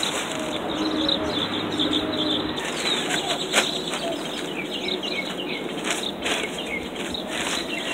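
Black plastic sheeting crinkling and rustling as gloved hands press and smooth it over a garden bed, with small birds chirping repeatedly in the background.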